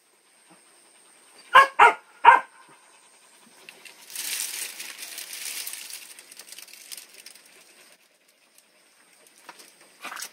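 Three short, high-pitched cries from a newborn puppy whose eyes are not yet open, close together about a second and a half in. They are followed by a few seconds of rustling noise.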